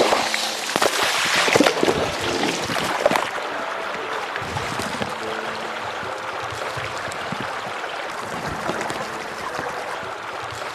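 Running, trickling water, with sharp knocks and rustles of handling in the first three seconds, over faint background music.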